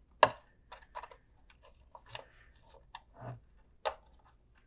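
Screwdriver clicking and scraping on the screw terminals of a plug-in alarm transformer as a wire is fastened under a terminal screw: one sharp click about a quarter second in, then about half a dozen lighter, irregular clicks.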